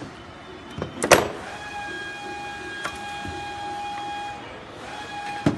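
Work noise from handling an opened metal machine housing and its panel: a sharp knock about a second in and another near the end, with a steady high whine lasting a few seconds between them.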